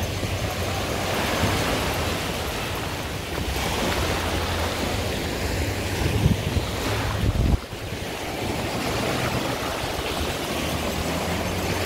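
Sea surf washing in and wind buffeting the microphone, a steady loud rush with a low hum underneath; it swells twice and then drops off sharply a little past halfway.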